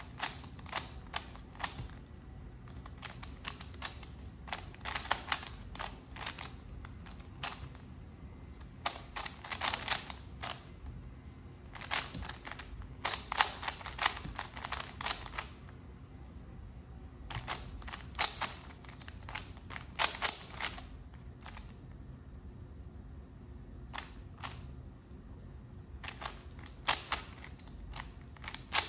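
Plastic 3x3 Rubik's cube having its layers turned by hand: rapid clicking and clacking in bursts of a second to a few seconds, with short pauses between bursts.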